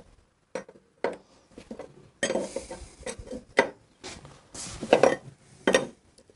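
Steel hand tools clinking and clanking in a string of separate, irregular knocks as wrenches and a socket are handled at a motorcycle's rear axle nut.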